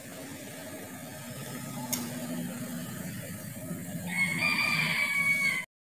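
Quiet room noise, then about four seconds in a rooster crows, one held call of about a second and a half that is cut off abruptly.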